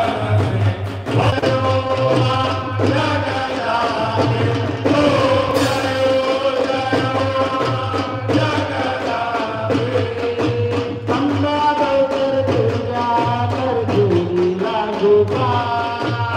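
Devotional aarti song to the goddess Durga: voices singing a melody over a steady repeating drum beat.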